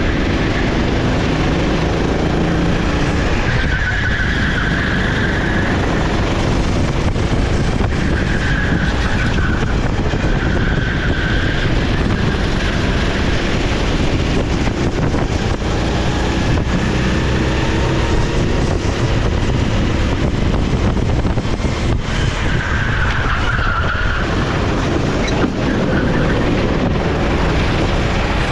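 Sodikart SR4 kart's 390cc single-cylinder four-stroke engine running at racing speed, the revs rising and falling. A few brief higher squeals come through, about four seconds in, around ten seconds and near the end.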